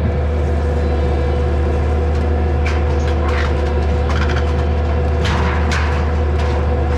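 Excavator engine running steadily under load, with scattered crunches and clanks from about three seconds in as the shed is torn apart.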